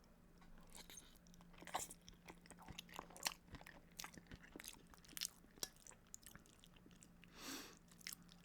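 Close-up chewing of food: soft, irregular wet mouth clicks and smacks, with a faint steady hum underneath.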